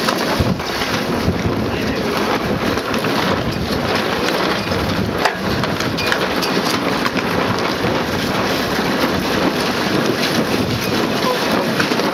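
Steady wind noise on the microphone aboard a keelboat sailing under way, with water rushing past the hull.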